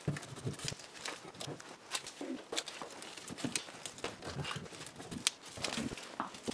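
Steel locking pliers and spring clamps clinking and knocking against each other and the bench, with cloth rustling, as a clamped knife is handled and wiped with a rag. Scattered sharp clicks come at irregular intervals, a few louder than the rest.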